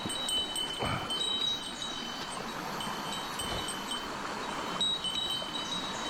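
Steady rush of a shallow mountain stream running over stones and small cascades, with high bell-like tones ringing on and off above it. A single soft knock about a second in.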